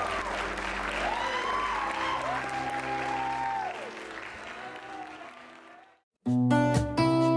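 A church congregation applauding over recessional music; both fade out about six seconds in. After a brief silence, an acoustic guitar starts strumming near the end.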